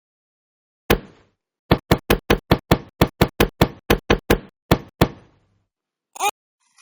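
Knocking on a hard surface: one knock, then a fast, even run of knocks, about five a second, lasting over three seconds. A short, brief sound comes about a second after the knocking stops.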